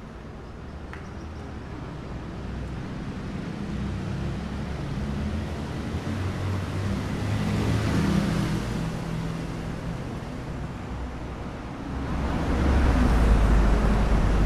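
Road traffic: passing motor vehicles with a low engine rumble, one swelling past about eight seconds in and a louder one building from about twelve seconds.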